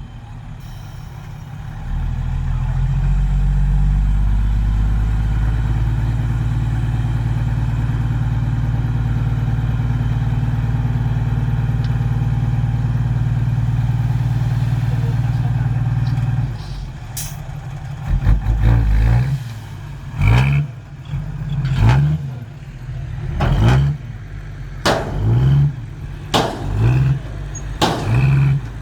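Heavy diesel dump-truck engine pulling at steady high revs for about fifteen seconds. It then drops back, and the engine note rises briefly again and again, with sharp knocks between.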